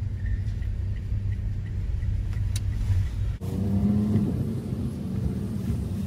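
Steady low rumble of a small Daihatsu car's engine and tyres heard from inside the cabin while driving. About three and a half seconds in there is a sudden break, and then the same cabin rumble continues as the car rolls slowly through a car park.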